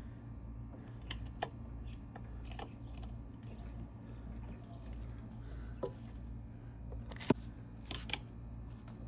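Scattered metal clicks and scrapes of a pry tool levering at a stuck part in an NV3500 transmission's aluminum case, the tool biting into and chipping the aluminum. The sharpest click comes about seven seconds in, with two more just after.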